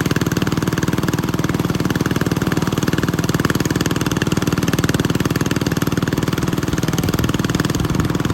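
Engine-driven corn sheller running steadily, its engine beating fast and even.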